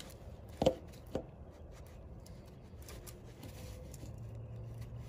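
Two sharp knocks about half a second apart, the first the louder, then faint rubbing and ticking from a gloved hand working around the connecting rod and wrist pin inside the engine.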